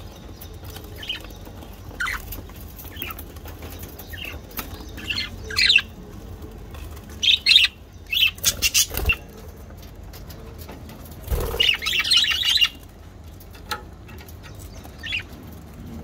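Pet budgerigars in an aviary chirping and squawking in short scattered bursts, busiest in the middle, with a couple of brief wing flutters.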